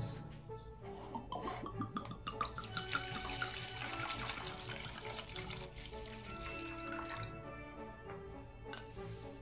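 High-proof neutral grain spirit poured in a steady stream from a glass bottle into a glass measuring cup, splashing as it fills; the pour starts about a second in and stops about seven seconds in. Background music plays under it.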